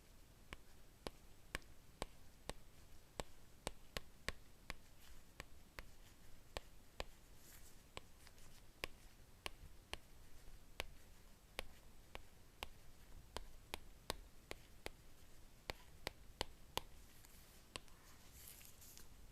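Light, sharp taps on the iPad's glass screen, irregular at about two or three a second, with a brief rustle about halfway through and another near the end.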